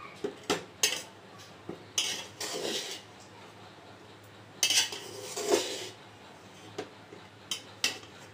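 Metal spatula scraping and clinking against an aluminium pot while fried rice is stirred and turned, in irregular strokes with short pauses between.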